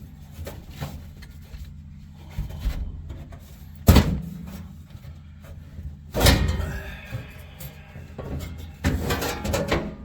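Workshop knocks and clatters as parts are handled: a sharp knock about four seconds in, a ringing clatter about six seconds in and a rattling clatter near the end, over background music.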